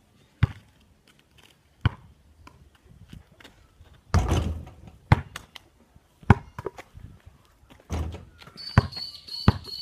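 A basketball thudding again and again: bouncing on hard ground and striking the hoop's backboard and rim. The loudest hits come about four seconds in and again around eight seconds. Near the end a steady high pulsing chirp starts up.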